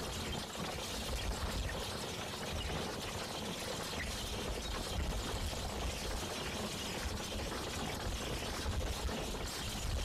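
Star horse-drawn corn drill at work, pulled over harrowed soil by a pair of horses: a steady, even rushing noise with no clear rhythm.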